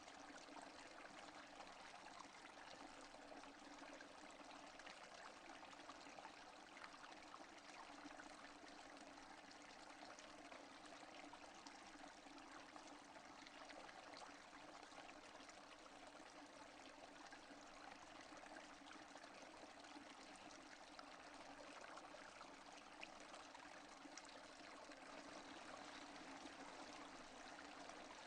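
Steady rain with no thunder: a faint, even hiss of many small drop hits that does not change.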